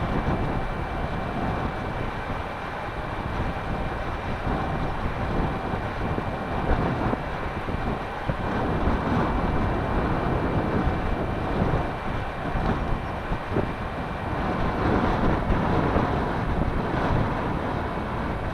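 Wind buffeting the microphone in uneven gusts, with a faint steady high-pitched whine running underneath.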